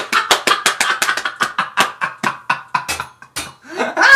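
A woman laughing hard: a fast run of short, breathy bursts of laughter, breaking off briefly about three seconds in and swelling louder again near the end.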